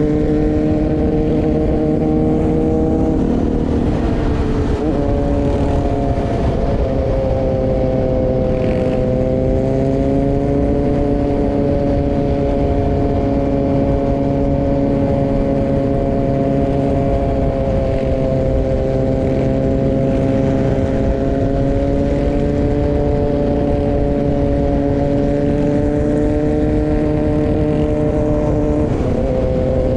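Dirt bike engine running under way at a steady cruising speed. Its pitch dips about three seconds in and again near the end, over a low rushing noise.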